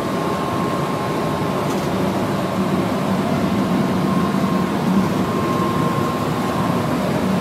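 Steady running noise of a Shinkansen bullet train at speed, heard from inside a passenger car: an even low rumble with a faint steady whine above it.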